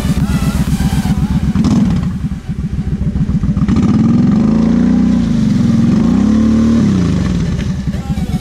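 Kawasaki KFX 700 V-Force quad's V-twin engine running, then revved up and down twice, about four to seven seconds in.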